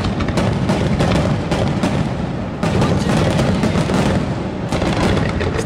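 Fireworks barrage: many aerial shells bursting in quick succession, a continuous rumble of booms and crackling bangs.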